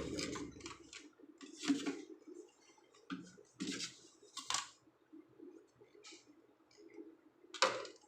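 About five sharp clicks and knocks at irregular intervals, like small metal parts or tools being handled, with the loudest near the end.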